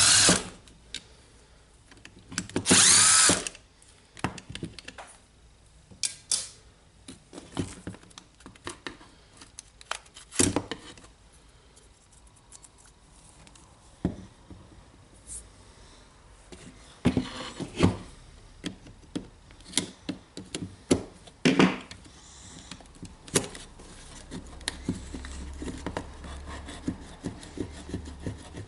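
Cordless drill-driver motor whirring in two short bursts, near the start and again about three seconds in, as it backs screws out of a cordless drill's plastic housing. Scattered clicks and knocks follow as the plastic housing parts are handled.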